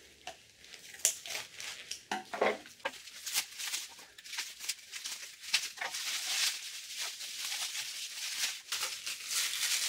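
Bubble wrap and plastic packing crinkling and rustling in the hands as wrapped doll parts are unpacked, with irregular crackles throughout.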